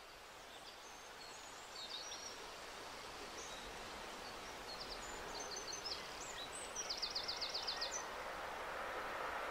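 Outdoor ambience fading in and gradually growing louder: a steady background hiss with several birds chirping, and near the end a quick rattling trill of about ten notes.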